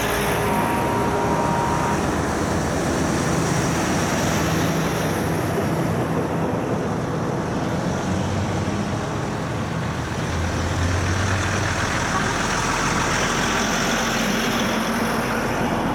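Heavy diesel trucks driving past one after another, with their engines and tyres running steady and loud.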